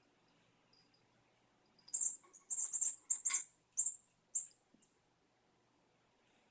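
Squeaky mouse ball toy squeaking as it is batted, a quick run of about six short, high chirps starting about two seconds in and stopping a little before five seconds.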